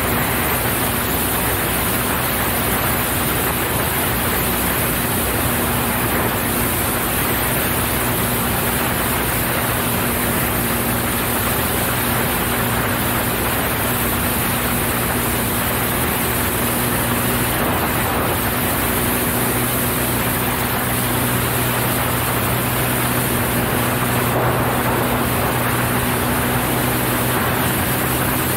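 Cessna 172 single-engine piston airplane in flight on a low approach: the engine and propeller drone steadily, with a constant rush of airflow over it.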